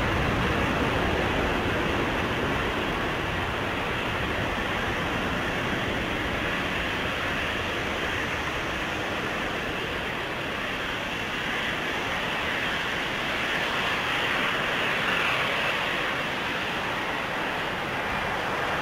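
Boeing 767's twin jet engines at takeoff thrust during the takeoff roll: a steady roar that eases slightly as the airliner pulls away, then swells again a few seconds before the end.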